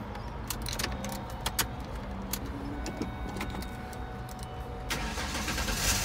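Keys jangling and clicking in the ignition, then about five seconds in the engine cranks and starts.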